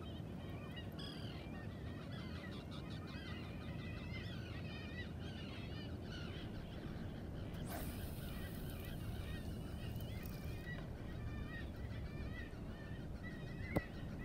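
A flock of birds calling continuously, many short wavering calls overlapping, over a steady low rumble. A hiss rises over it for about three seconds in the middle, and a single sharp click sounds near the end.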